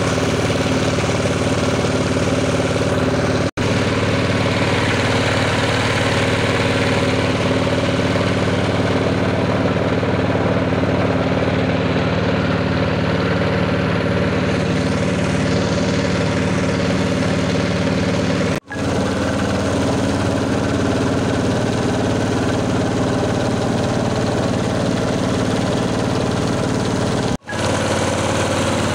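Motorboat engine running steadily at an even pitch as the boat cruises, cut by three sudden, brief gaps of silence.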